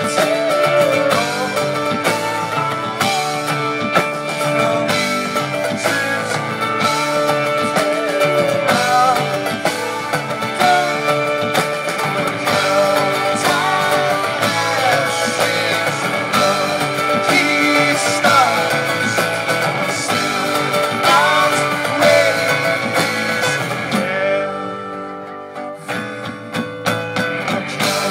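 Live rock band playing, with guitars prominent. About three-quarters of the way in the music briefly drops to a quieter, thinner passage before the full band comes back in.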